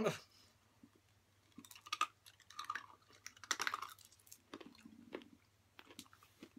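Hard candy-necklace beads being bitten off and crunched between the teeth: one sharp crack right at the start, then repeated bursts of crunching and chewing.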